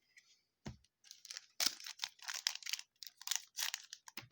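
Crinkling and crackling of a foil trading-card pack wrapper being handled and torn open, in quick rustling runs, after a soft thud about a second in.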